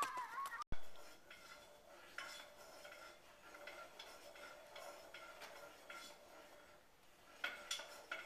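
Faint, scattered clinks and scrapes of a cooking utensil against a pan on a stovetop, over a faint steady hum, with a quick run of clinks near the end.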